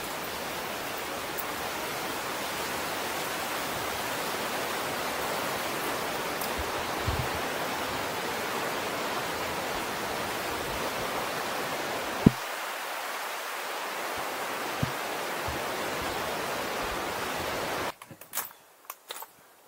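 Steady rush of the Niagara River's whitewater rapids. About 18 seconds in it drops away suddenly, leaving a few sharp knocks of footsteps on rock.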